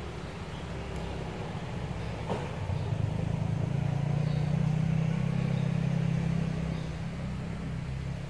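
Low engine rumble of a passing motor vehicle, growing louder about three seconds in and dying down near the end.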